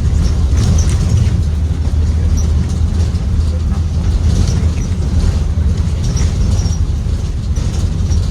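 Ride noise inside a 2023 Blue Bird Vision school bus: its Ford 7.3L V8 engine and the road make a steady low drone, with light rattles from the body.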